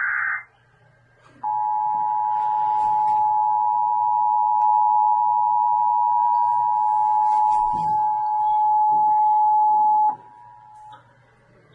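The end of an Emergency Alert System (SAME) header: a burst of digital data tones that stops about half a second in. About a second later the EAS two-tone attention signal sounds steadily for about eight and a half seconds, then cuts off. Together they mark the start of a broadcast emergency alert.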